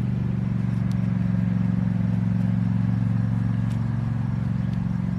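An engine running steadily at constant speed, an even low hum that does not change.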